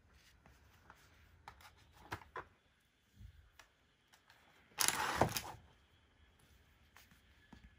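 Small wooden toy blocks being handled and pulled apart on a soft mat: scattered light clicks and knocks of wood, with one louder rustling scrape lasting under a second about five seconds in.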